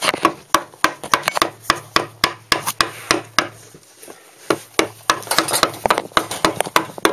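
Wood being hand-carved: rapid, irregular sharp knocks of a carving chisel biting into the wood and chipping it, about four a second.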